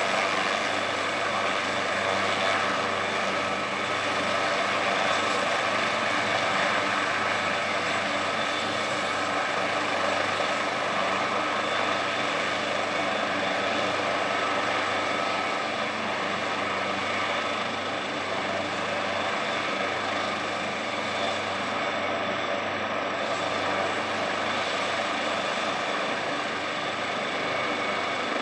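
AgustaWestland AW139 helicopter running on the ground with its main rotor turning: the twin Pratt & Whitney Canada PT6C-67C turboshaft engines give a steady turbine whine over the rotor noise.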